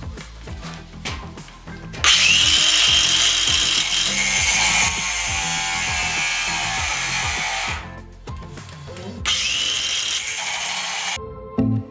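Stark CAG 1800 cordless angle grinder cutting a steel threaded rod with a metal cutting disc: a loud, hissing grind with a high whine that starts about two seconds in. It breaks off about eight seconds in, comes back a second later, and stops shortly before the end. Background music with a beat plays underneath.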